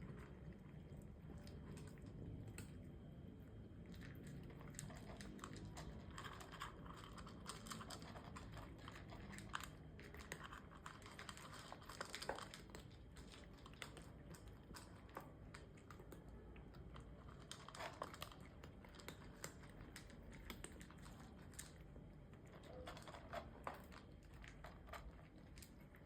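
Cats eating, faint and close: many small irregular crunches and clicks of chewing.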